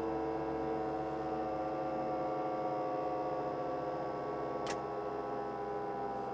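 Bell 212 helicopter's turbine engines and drive heard from inside the cabin, a dense whining hum whose tones drift slowly down in pitch as it winds down after shut-off. A single sharp click sounds near the end.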